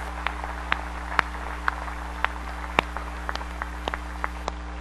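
Scattered single hand claps from a few people, roughly two or three a second and uneven, over a steady electrical mains hum.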